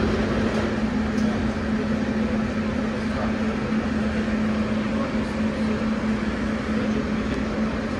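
Inside a Siemens Inspiro metro car standing at a platform: the train's onboard equipment gives a steady, even hum.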